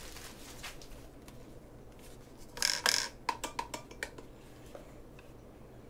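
Hard plastic handling noise from a Spektrum SLT3 pistol-grip RC transmitter: a short scrape, then a quick run of about eight small clicks and knocks as it is turned over in the hands.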